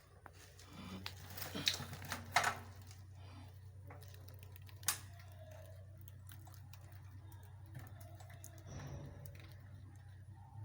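Light clicks and knocks from objects being handled: a cluster in the first two and a half seconds and one sharp click about five seconds in, over a steady low hum.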